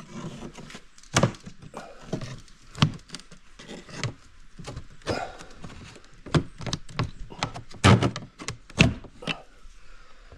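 Irregular knocks, taps and thunks as a knife is worked in to prise open the old veranda door frame's trim, with a few louder thunks near the end.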